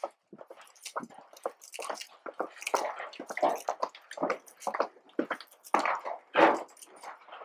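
Footsteps and shuffling scuffs of several people on sandy, gritty stone steps and floor, irregular, the loudest a little before the end.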